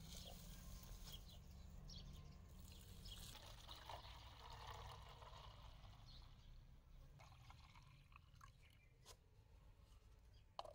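Faint pouring of liquid fertilizer from a plastic jug, trickling onto soil and then into a plastic jar, with a few light knocks near the end.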